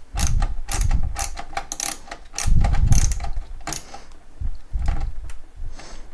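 Screwdriver turning a screw out of a laser printer's plastic-and-metal casing: a run of sharp ratchet-like clicks, about three or four a second, over dull knocks on the chassis, thinning out near the end.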